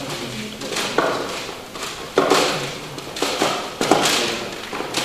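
Plastic CD cases clattering and knocking together as they are rummaged through in a hurry, with a burst of sharp knocks about every half second to second.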